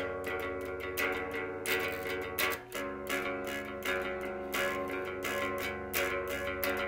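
Instrumental section of a rock song: guitar strumming chords through an effects unit over bass guitar, with no vocals. The chords change after a brief dip about two and a half seconds in.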